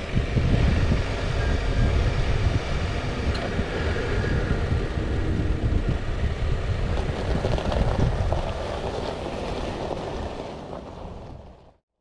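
Steady low rumble with wind buffeting the microphone, fading out and then cutting off just before the end.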